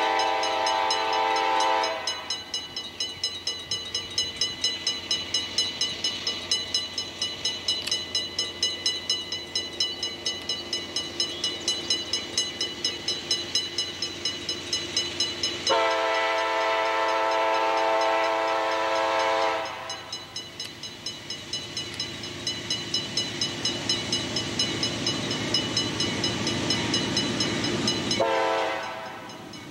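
A CSX freight diesel locomotive sounds its multi-note air horn as it approaches. There is a short blast at the start, a longer blast about halfway through lasting roughly four seconds, and another beginning near the end. Between the blasts the locomotive's engine rumble grows louder as it nears.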